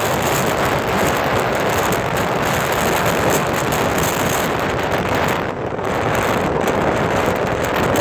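Strong blizzard wind buffeting the microphone: a loud, steady rush of noise that eases briefly about five and a half seconds in.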